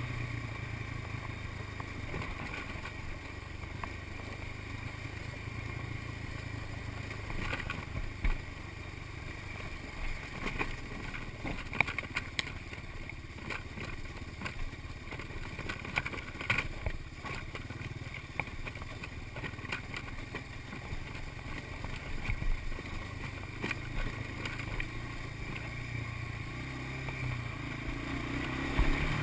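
1986 Honda TRX250 Fourtrax ATV's single-cylinder four-stroke engine running at a steady low speed while being ridden, with scattered sharp knocks and rattles.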